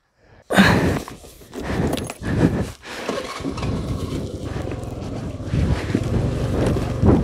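Honda Activa 3G scooter being ridden on a rough gravel road: steady wind noise on the microphone over the low, even hum of its small single-cylinder engine. The first couple of seconds hold irregular knocks and rustles before the ride settles into a steady sound.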